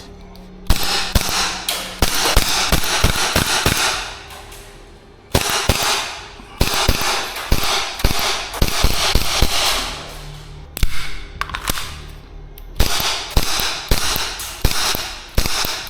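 Airsoft gun firing rapid strings of shots, four strings of a few seconds each with short pauses between them.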